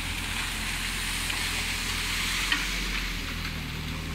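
Komatsu PC30 mini excavator working, its diesel engine running steadily under a constant crackling hiss, with one sharp click about two and a half seconds in.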